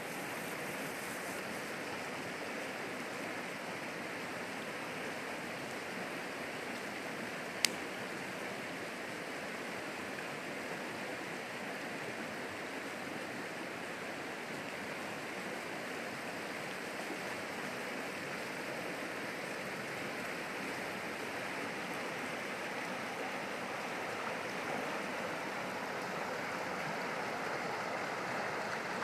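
Steady rush of a creek running fast over rocks and small rapids, growing a little louder near the end. One sharp click about seven and a half seconds in.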